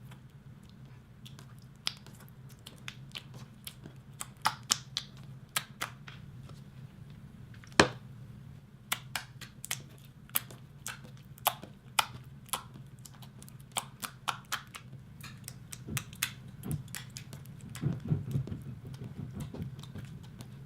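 Clear slime being kneaded and squeezed by hand while gold leaf is mixed in, giving many sharp, irregular clicking pops of trapped air, the loudest about eight seconds in. A steady low hum runs underneath.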